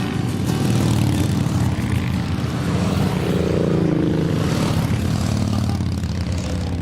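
Several motorcycle engines running together, a steady rumble, with one engine rising in pitch about three seconds in.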